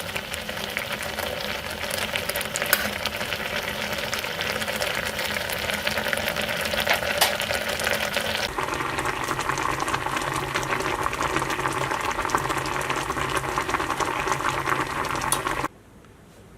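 Honey, citrus juice, ginger, garlic and cloves simmering in a pot on low heat, bubbling and sizzling with a steady crackle. The sound changes abruptly about halfway through and cuts off shortly before the end, leaving faint room tone.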